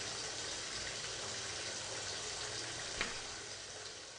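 Water gushing and splashing over the rim of an overflowing bathtub, a steady rush that fades out near the end. A light click comes about three seconds in.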